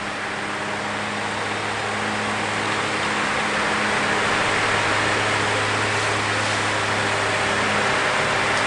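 Vintage Galaxy oscillating table fan running on high speed: a steady electric-motor hum under the rush of air from its blades, the air noise slowly growing louder.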